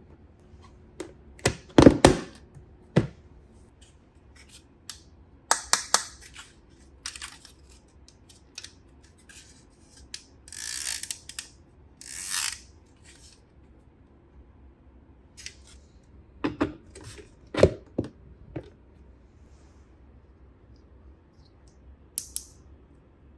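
Unboxing a toy by hand: scattered small clicks and taps, with two short rustling swishes about halfway through.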